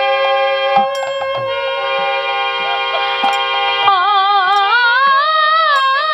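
Devotional kirtan music: a harmonium and a bamboo flute hold steady notes. About four seconds in, a woman's voice comes in over the harmonium, singing a long, wavering, ornamented line.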